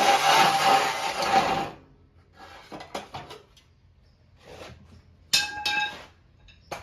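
A power tool runs with a loud, steady hiss and cuts off abruptly a little under two seconds in. Scattered light metallic clinks follow as metal parts are handled, with one louder ringing clank a little past the middle.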